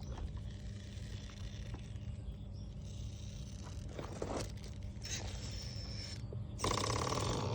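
RC rock crawler driving over rough ground: scraping and light knocks over a steady low electric-motor hum, with a louder, harsher burst of motor noise near the end.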